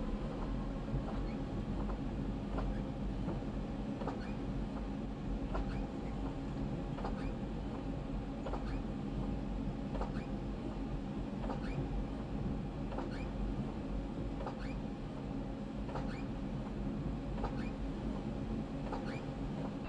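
Rapid transit train running slowly, with a steady motor hum and a sharp click repeating about every second and a half.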